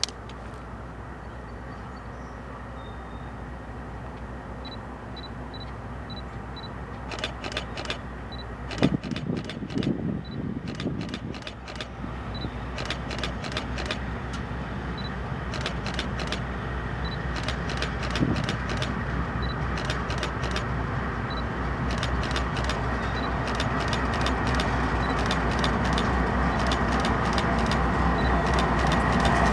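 Approaching train: a steady low rumble that grows louder and louder, with scattered clicks over it.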